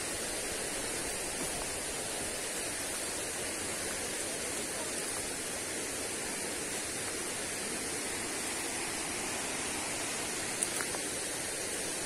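Steady rushing of a waterfall and stream, an even noise that does not change, with one brief click near the end.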